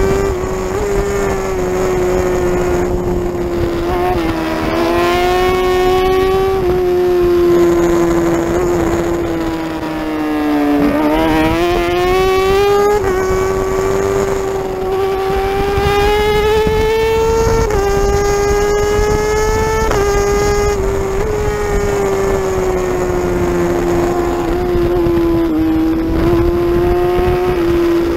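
Superbike engine running hard at high revs, about 10,000–11,700 rpm, heard on board with wind rush. The pitch holds mostly steady, with rising sweeps as the bike pulls through the gears and a brief dip and climb around ten to thirteen seconds in.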